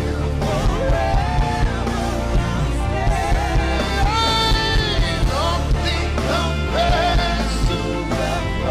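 Live worship band music: a steady drum beat and bass under a lead melody that slides and wavers in pitch.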